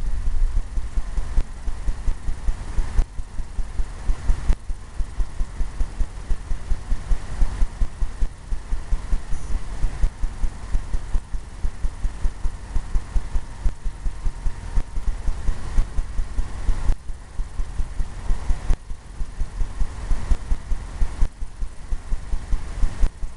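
Oil paintbrush tapping against a stretched canvas in runs of quick, even thumps, about three or four a second, with short pauses between runs.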